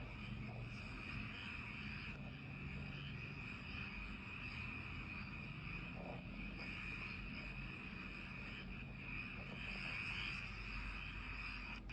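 Night chorus of frogs and insects calling together: a steady, unbroken trilling.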